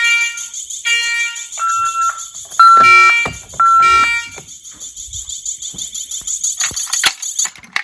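Fire alarm horns sounding together in about five pulses, roughly one a second, in two differing pitches. They stop a little over four seconds in, while a steady high-pitched tone carries on until a couple of clicks near the end.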